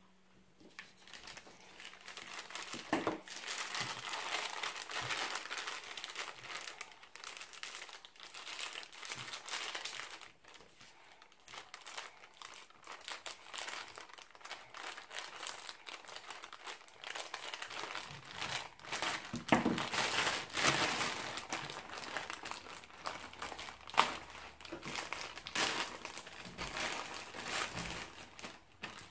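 Plastic courier mailer bag crinkling and crackling as it is handled and pulled open, with irregular sharp snaps of the plastic, louder in the second half.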